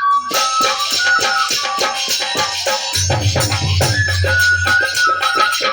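Indian devotional ensemble music: fast hand percussion with jingling rattles comes in just after the start under a held melody line, and a low steady drone joins about halfway through.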